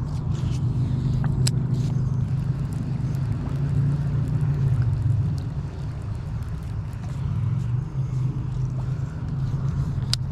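A steady low motor hum that swells and eases slightly, with a few sharp clicks over it.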